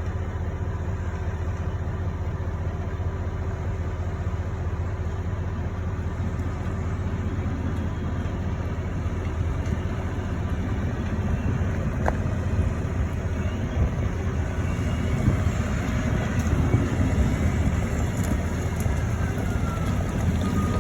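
A heavy vehicle's engine running steadily with a deep, even drone as it hauls a baler in, with a brief click about twelve seconds in.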